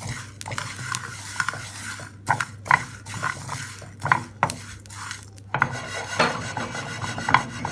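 Wooden spatula stirring and scraping a pan full of whole spices being dry-roasted (coriander seeds, cumin, peppercorns, cloves, cardamom), the seeds rattling and swishing against the pan in irregular strokes.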